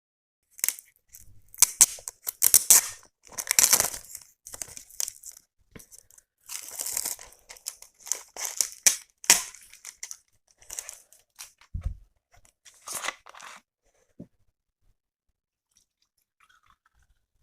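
Close-miked chewing and wet mouth noises of someone eating banana: irregular bursts of crackly, sticky clicks that stop a few seconds before the end, with one short low bump in between.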